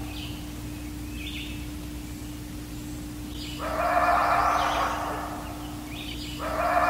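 Two loud, drawn-out animal calls in a night field recording, each about two and a half seconds long, the second starting near the end. The uploader presents them as dogman vocalizations. A steady low hum runs underneath, with a few faint high chirps in the first couple of seconds.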